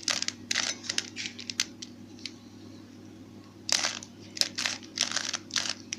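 A plastic Rubik's cube being turned by hand: quick runs of clicks and rattles as its layers snap round, with a pause of about two seconds in the middle.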